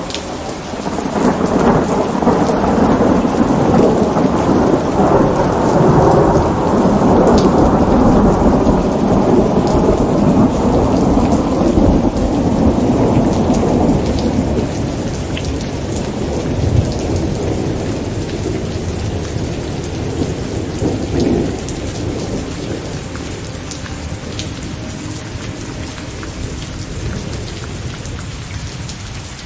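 A long roll of thunder over steady rain. The rumble swells about a second in, then slowly dies away over the next twenty seconds, leaving the rain.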